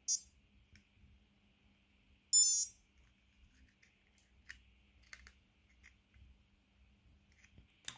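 Light clicks and taps of plastic as a Garmin Edge 1030 bike computer is handled and its loose new screen is lifted off the frame. A short high-pitched chirp comes right at the start, and a louder one about two and a half seconds in.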